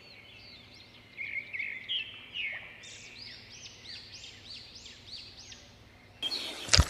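Songbirds singing and chirping, with a run of evenly repeated short arched chirps, about two or three a second, from about three seconds in.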